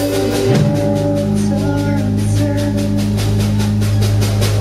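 Live rock band playing: electric guitars holding sustained chords over a drum kit keeping a steady beat.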